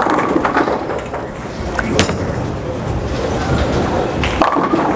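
Urethane bowling ball rolling down the lane with a steady low rumble, and a single sharp crack about two seconds in.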